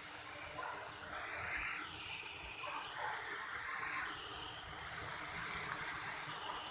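Chopped carrots and vegetables sizzling in oil in a pan, a steady frying hiss that swells and eases three times.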